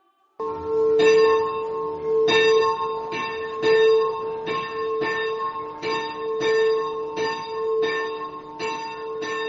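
Bells ringing, a run of strikes a little over once a second over a lasting ring, starting suddenly about half a second in.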